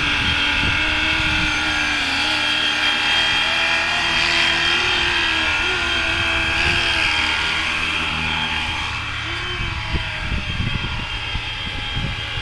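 Electric RC helicopter, a FlyWing Bell 206 V2 power frame under a 3D-printed Cobra-style fuselage, in flight. The brushless motor and drivetrain give a steady high whine over the main rotor's buzz, and the pitch wavers slightly as it manoeuvres. It grows a little fainter in the second half as it flies off.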